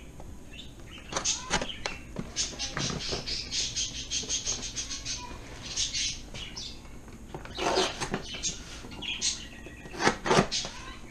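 A cardboard box being pried and torn open by hand: scratchy tearing and rustling, with a quick run of scraping strokes, about four a second, in the first half and two louder tears later on.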